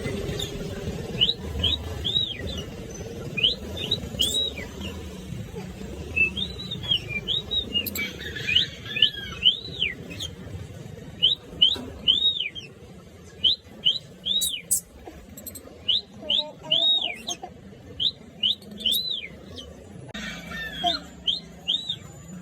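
Pet lovebirds and cockatiels chirping noisily: a steady stream of short, high, arched calls, often two or three in quick succession.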